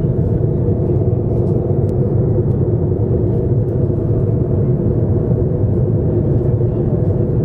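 Cabin noise of a jet airliner in cruise: a loud, steady rumble of airflow and engines with a faint, even hum.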